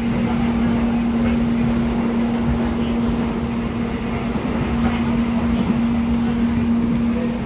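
Inside the carriage of the Soekarno-Hatta airport rail link train running at speed: a steady rumble of the wheels and running gear, with a constant low hum over it that dips briefly about four seconds in.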